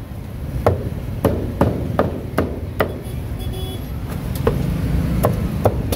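Meat cleaver chopping roast duck on a thick round chopping block: a run of sharp chops, about two a second, then a short pause and three more chops near the end.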